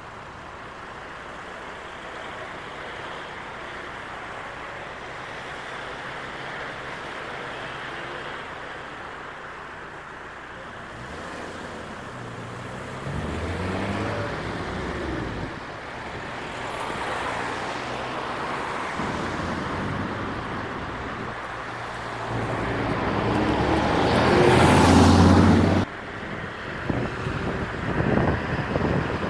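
Car driving along a road: steady tyre and wind noise that grows louder in swells, with the loudest swell about three quarters of the way through, which cuts off suddenly.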